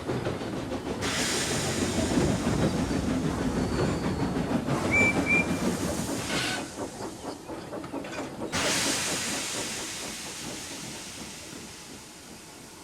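Steam locomotive sound effects: a low, rapidly pulsing rumble of the engine running, with a loud hiss of steam for a few seconds and two short high peeps about five seconds in. The rumble dies away after about six seconds, and a second long hiss of steam begins near nine seconds and fades.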